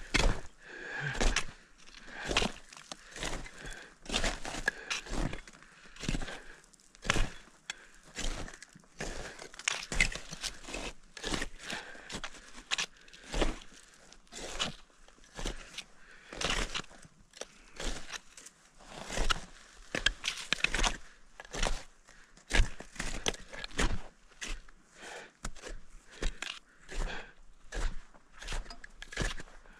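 A climber's footsteps, one short sharp step after another at about one to two a second, walking steadily uphill.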